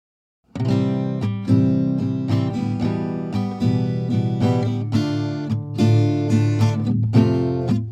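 Acoustic guitar music, plucked and strummed, starting suddenly out of silence about half a second in.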